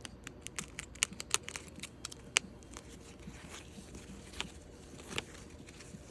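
Packing wrap crinkling and snapping as it is pulled and cut away from a resin doll's hands. A quick run of sharp crackles and clicks comes first, then a few scattered clicks.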